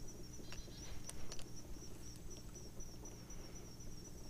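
Insects chirping in a fast, high, evenly pulsing trill, over a low steady hum, with a few soft clicks in the first second or so.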